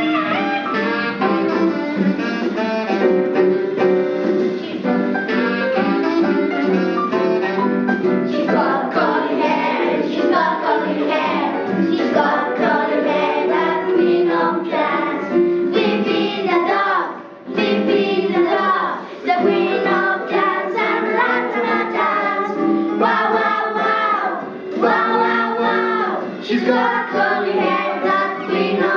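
Children singing a song together over a recorded instrumental backing track.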